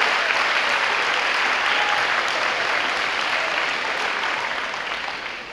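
A large audience applauding, steady clapping that fades away near the end.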